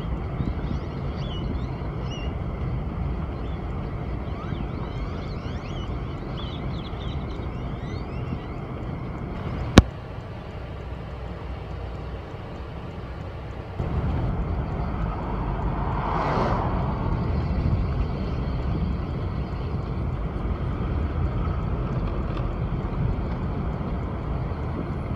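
Wind rumbling on the microphone outdoors, with faint high chirps in the first several seconds and a single sharp click about ten seconds in. The rumble drops for a few seconds, then comes back louder, with a brief whoosh a couple of seconds later.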